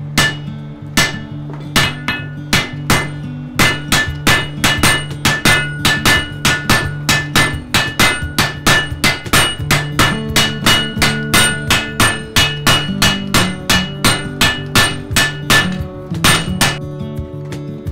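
Blacksmith's hand hammer and a striker's sledgehammer forging red-hot steel on an anvil: ringing metal blows, a few spaced strikes at first, then a fast run of about three a second, stopping near the end. Background music plays underneath.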